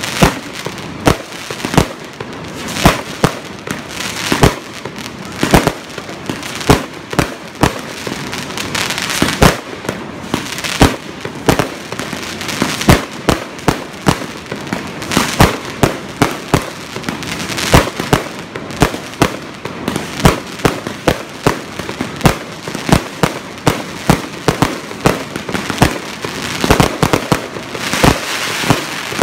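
Fireworks display: aerial shells bursting in a rapid, irregular series of sharp bangs, one or more every second, over a continuous crackling hiss.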